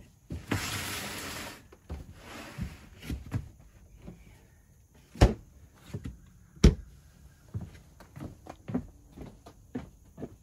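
Rummaging inside plastic picnic coolers with a rustling shuffle, then two sharp knocks of hard plastic cooler lids being shut, about a second and a half apart. These are followed by footsteps walking away across the porch floor.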